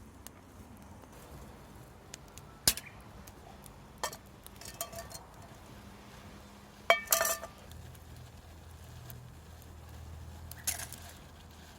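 Scattered clinks and knocks of dishes and utensils. There are single sharp strikes at intervals, and a cluster of louder clinks with a short ringing tone a little past halfway.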